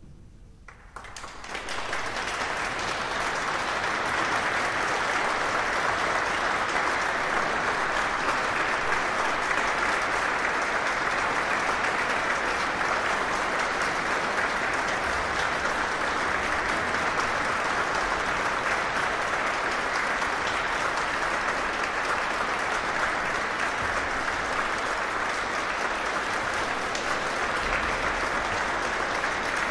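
Concert audience applauding in a large church, the clapping building up about a second in and then holding steady.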